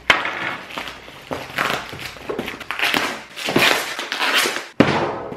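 Taped cardboard parcel wrapped in plastic film being turned over and handled on a glass-topped table: crinkling plastic and scraping cardboard, with a few sharp knocks.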